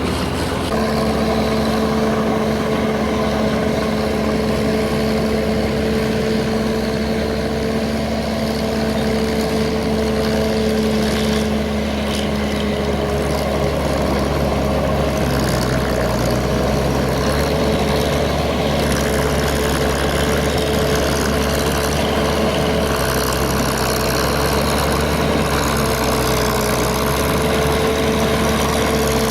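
Paddy-field tractor engine running steadily while ploughing a wet paddy field, a constant drone with a steady whine over it that shifts slightly in pitch now and then.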